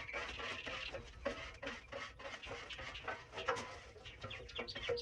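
Irregular light clicks and scrapes of cooking utensils handling food.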